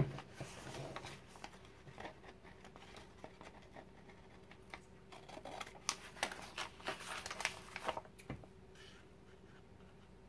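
Scissors snipping through a sheet of fabric as it is trimmed, in faint short cuts that come thick and fast between about five and eight seconds in, with one sharper snap just after.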